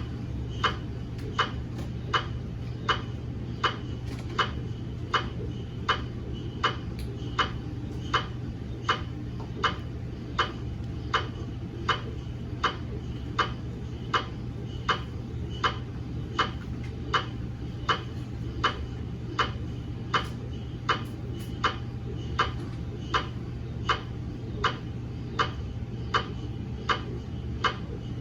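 GE MRI scanner running: a sharp tick repeating evenly about 1.4 times a second over a steady low hum.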